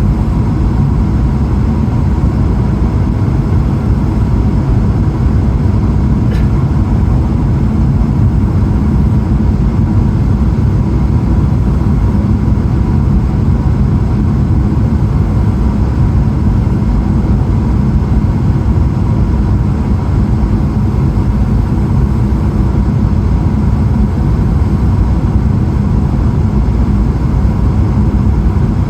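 Steady cabin noise inside a Boeing 777-300ER in flight: the continuous rumble of its GE90 engines and the airflow over the fuselage, with a faint steady high tone.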